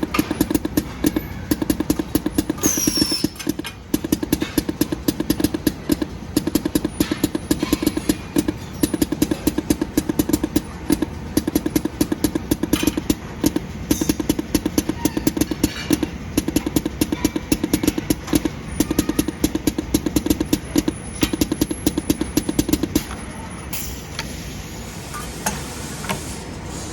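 Soft PVC dispensing machine running: rapid, regular clicking with a pulsing hum, which stops about 23 seconds in.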